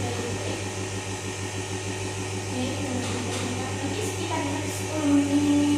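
Compressor nebulizer running with a steady low hum, with faint voices over it in the second half.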